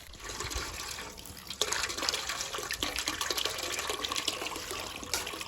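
Water running from a hose and splashing into a container as it is filled, getting louder about a second and a half in.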